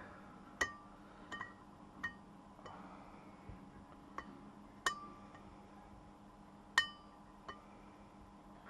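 Steel hub-bearing parts clinking against metal, about eight sharp separate clinks, each ringing briefly, at irregular intervals, the loudest about five and seven seconds in.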